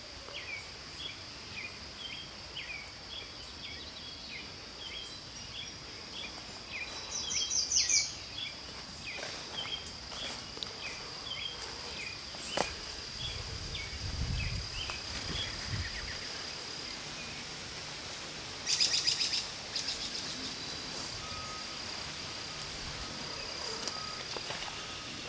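Birds calling outdoors: a bird repeats a short high chirp about twice a second through the first half, and there are two brief rapid trills, one about seven seconds in and one near nineteen seconds. A steady thin high tone runs under them, and a short low rumble comes about halfway.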